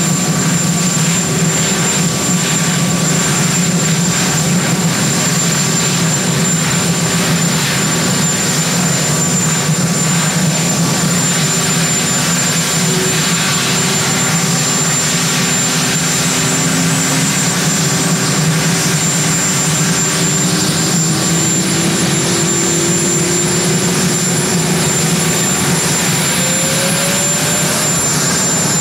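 Sikorsky VH-3D Sea King helicopter (Marine One) running on the ground, its twin turboshaft engines and turning rotor making a loud, steady whine and drone. Over the second half a tone slowly rises in pitch as the rotor is brought up to speed.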